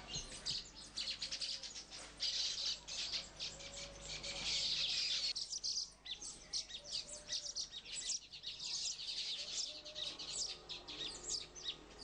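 A flock of baya weavers chattering: many quick, high chirps overlapping one another, densest about four to five seconds in.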